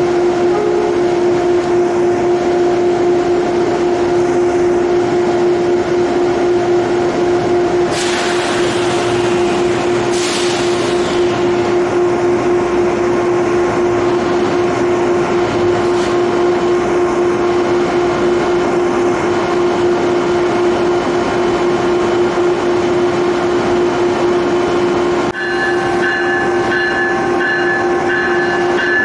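Amtrak ACS-64 electric locomotive standing at the platform, its equipment giving a loud steady hum. Two sharp hisses of air come about 8 and 10 seconds in. About 25 seconds in, higher whining tones join the hum.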